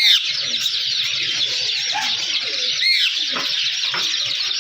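Birds chirping densely and continuously. Two louder calls fall in pitch, one right at the start and one about three seconds in.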